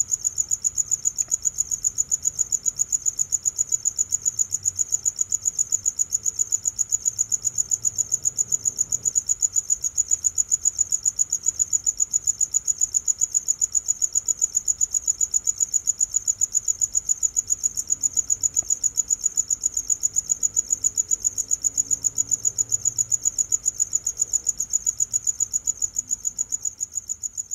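Cricket chirping in a steady run of rapid, evenly spaced, high-pitched chirps that begins to fade near the end.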